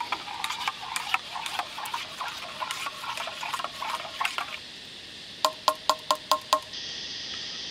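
A metal spoon stirring hot chocolate in a stainless steel camp mug, clinking and scraping against the sides, followed by six quick ringing clinks of the spoon against the mug.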